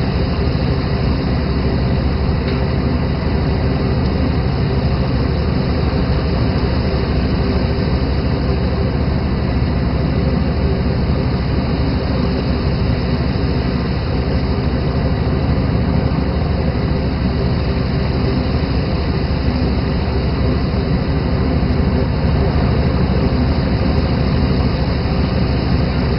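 A fishing boat's engine running steadily, mixed with a constant rush of water around the hull.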